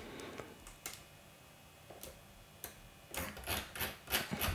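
Computer mouse clicking: a few single clicks spaced out, then a quick run of clicks starting about three seconds in.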